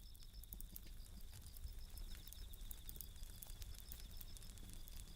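Bell crickets (suzumushi) trilling in a steady, rapidly pulsed high chirp, over a wood campfire crackling and popping in irregular sharp clicks with a low rumble from the fire.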